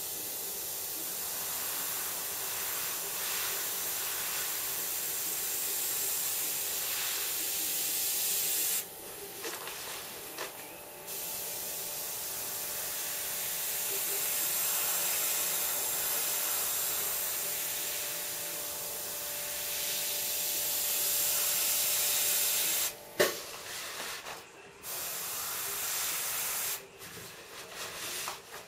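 Infinity airbrush hissing steadily as it sprays paint, in long stretches that break off about nine seconds in and again about twenty-three seconds in, where there is a sharp click. Near the end it sprays in short stop-start bursts.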